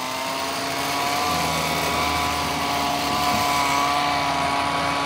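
Powered pole trimmer running steadily with a constant motor whine, while cutting back a tree's canopy.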